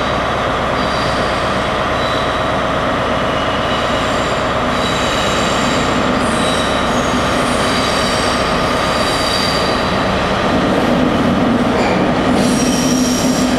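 Class 66 diesel locomotive's two-stroke V12 engine running as it hauls a coal train round a curve, with wheels squealing in high-pitched tones that come and go. The engine drone grows louder near the end as the locomotive draws close.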